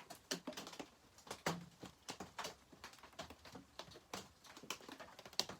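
Rain pattering on the shop roof: scattered light ticks and taps, several a second at uneven spacing, over a faint hiss.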